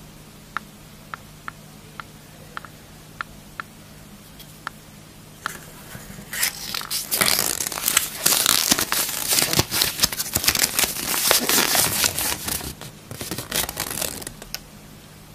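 Foil wrapper of a chocolate surprise egg being torn and crinkled off by hand: a few scattered light clicks, then, from about five seconds in, a long stretch of loud, dense crinkling and tearing that stops shortly before the end.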